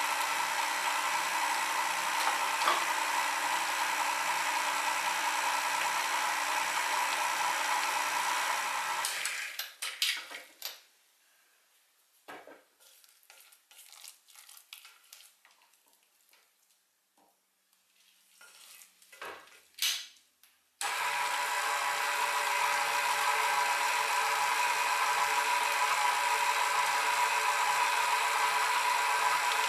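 KitchenAid Artisan stand mixer running with a steady whine as its flat beater works a thick fish paste. It stops about nine seconds in, giving way to soft scrapes and knocks of a spatula against the beater and bowl. The motor starts again suddenly about twenty-one seconds in and runs steadily.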